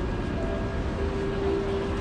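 Busy city street ambience: a steady low rumble of traffic and crowd noise.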